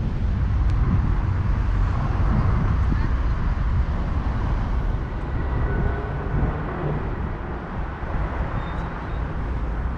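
City street ambience: a steady low rumble of traffic and street noise, with faint voices of passers-by.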